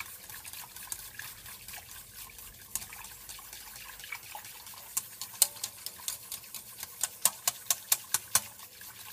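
Wire whisk beating mascarpone into milk in a stainless steel saucepan to work out the lumps: liquid swishing, with the whisk clicking against the pan. From about halfway through the clicks get louder and come in a quick run of several a second.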